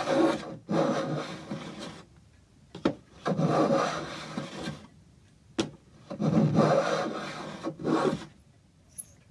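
A hand tool working wood in long scraping strokes, four strokes with short pauses between, and a couple of sharp knocks between them.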